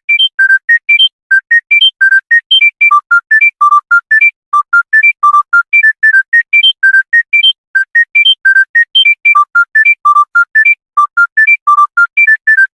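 Mobile phone ringtone: a fast melody of single high beeping notes, about five a second, played in short repeating phrases.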